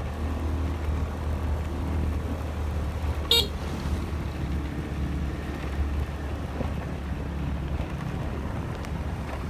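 Motor vehicle engine running steadily with a low hum, with a brief horn toot about three seconds in.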